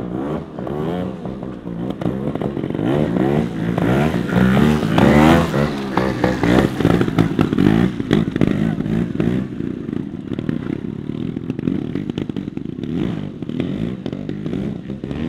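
Trials motorcycle engines being ridden in wheelies, revs rising and falling with throttle and clutch, with clattering from the gravel track.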